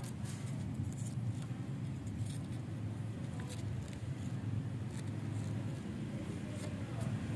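Steady low background rumble, with a few faint light scratches and clicks as a cat's paw bats a dry leaf on a terrazzo floor.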